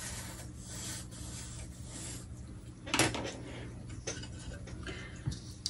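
Pencil scratching on paper while marking the corners of a printed design, with paper rustling under the hands. A sharp knock about three seconds in, and a couple of lighter knocks later.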